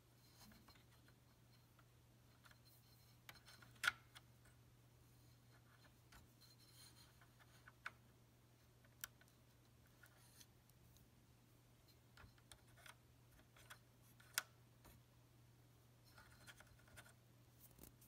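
Near silence: a low steady hum with scattered light clicks and scratches, the sharpest about four seconds in and again near fourteen seconds.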